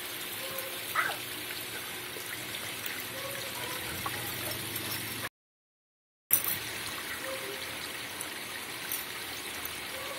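Small garden-pond fountain running, its dome of water steadily splashing and trickling onto the pond surface. A brief sharp sound about a second in, and the sound cuts out completely for about a second midway.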